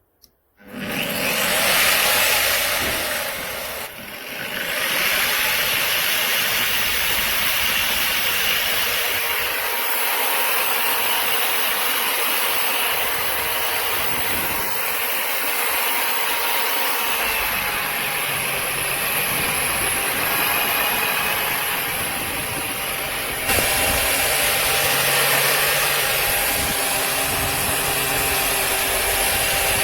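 Electric burnishing (satin-finishing) brush sander running steadily, its motor whine over the hiss of the abrasive drum on the work surface. It starts about half a second in.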